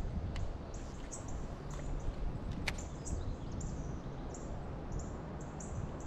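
Outdoor ambience of short, high chirps repeating every third to half second, over a steady low rumble. A single sharp click comes about two and a half seconds in.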